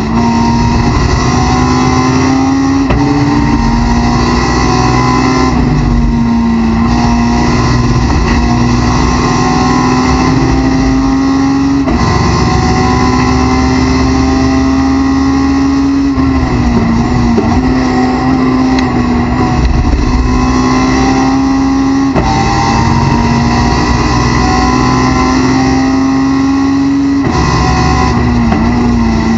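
Honda S2000's four-cylinder race engine heard from inside the cockpit, revving high and climbing steadily in pitch, then dropping sharply at each gear change, several times over.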